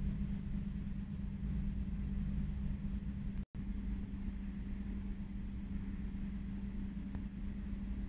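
A steady low machine hum and rumble with a constant low tone, broken by a momentary dropout to silence about three and a half seconds in.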